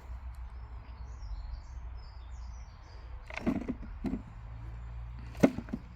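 Small birds chirping over a steady low outdoor rumble, with a brief run of knocks and rustling a little past the middle and one sharp tap about five and a half seconds in.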